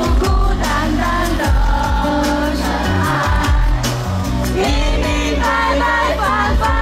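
Live pop song played loud through a concert PA, with a heavy bass beat and a male singer's voice carrying the melody, its wavering sung line strongest in the second half.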